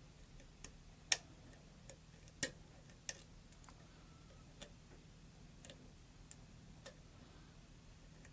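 Small metal clicks of a lock pick and tension wrench working the pins inside a Schlag pin-tumbler lock: about nine irregular faint ticks, the loudest about a second and two and a half seconds in. The pins are sticking and hard to set.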